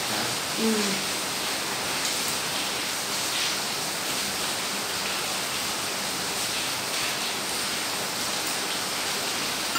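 Steady hiss of background noise, with a few faint clinks of chopsticks against porcelain bowls. A short hum of a voice comes about half a second in.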